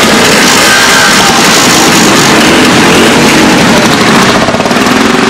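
Many motorcycle engines running close by as a group of motorcycles rides along together, loud enough to overload the microphone with a steady roar.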